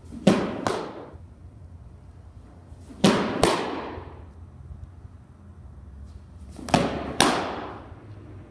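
Fastpitch softball pitches smacking into a catcher's mitt, three times, each one a pair of sharp smacks about half a second apart, with echo in an indoor hall.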